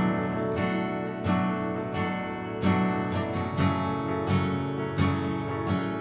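Solo acoustic guitar strumming chords in a slow, steady rhythm.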